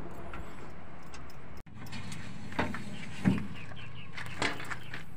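Metal hand tools clinking against battery terminals and the steel step plate while an old battery is being unbolted, a few separate clinks with the sharpest about three seconds in. A steady low hum runs underneath.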